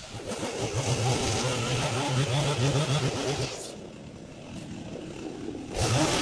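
Chainsaw engine revving hard for about three seconds, then easing back; a short rev comes again near the end.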